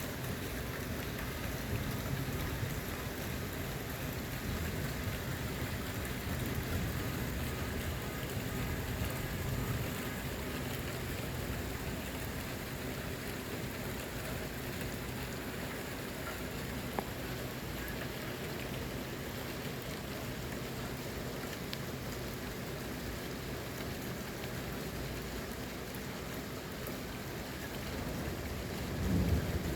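Steady rain falling and splashing on surfaces during a thunderstorm, an even hiss, with a brief low rumble swelling near the end.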